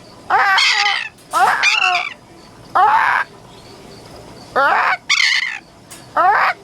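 A parrot squawking loudly six times in quick succession, each harsh call falling in pitch.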